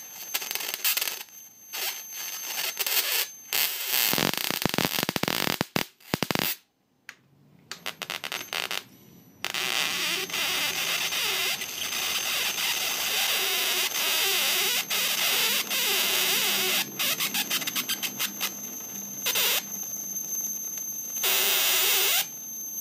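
High-voltage arc from a flyback transformer crackling and buzzing, over a steady high-pitched whine. It starts and stops repeatedly in the first several seconds, then runs on steadily from about ten seconds in.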